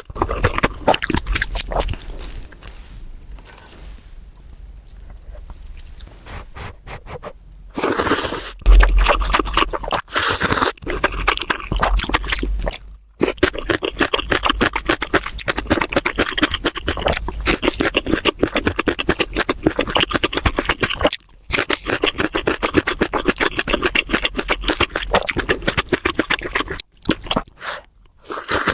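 Close-miked eating sounds of ramen, gimbap and kimchi being chewed: rapid wet, crackly mouth clicks and crunching, with a couple of louder bursts in the first half.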